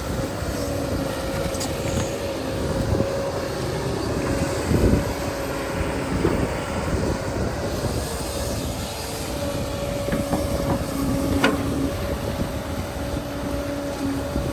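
Excavator at work: engine rumbling steadily with a whine that holds one pitch and a lower whine that comes and goes. A single sharp click about eleven seconds in.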